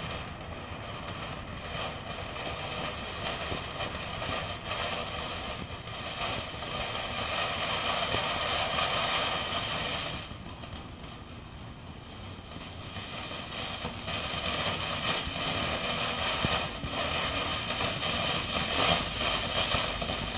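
Princess Power Sword fountain firework spraying sparks with a steady rushing hiss. It eases off about halfway through and then builds again, with a few sharp cracks near the end.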